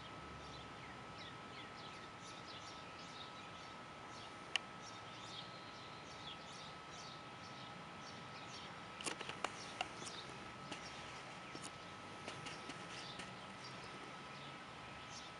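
Faint outdoor ambience of many short, high chirps over a thin steady tone. There is a single sharp click about a third of the way in, and a cluster of clicks about two-thirds in.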